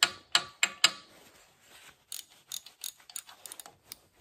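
Hand tools clicking and clanking on the flywheel assembly of an old air compressor as it is being taken apart: four sharp clicks in the first second, then a looser run of lighter clicks.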